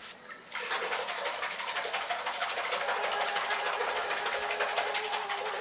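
Bubble-bath water being churned in a bathtub: a steady rushing of water that starts suddenly about half a second in, with a faint steady hum under it.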